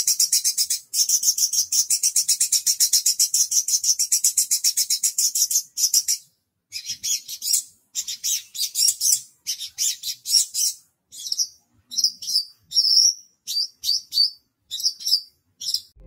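Javan bush lark (branjangan) singing. A very rapid, high trill of about a dozen notes a second breaks off about six seconds in. It is followed by shorter separate phrases and chirps with brief pauses between them.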